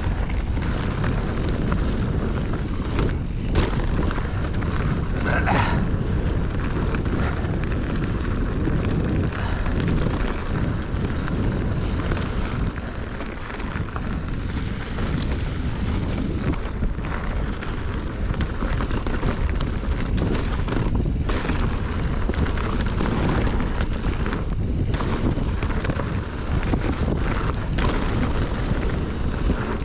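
Mountain bike descending a dirt trail at speed: a steady rush of wind buffeting the microphone over the rumble of tyres on the ground, with occasional sharp knocks and rattles from the bike over bumps.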